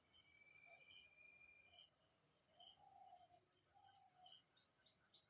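Near silence, with faint background insect chirping: quickly repeating high-pitched chirps, and a few faint lower warbling calls near the middle.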